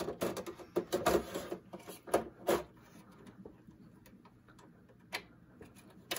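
Hard drive in its plastic tray sliding into a drive bay of a Synology RackStation RS815+ NAS: scraping and a quick series of clicks and knocks as the tray goes in and is pushed home, then a single click about five seconds in.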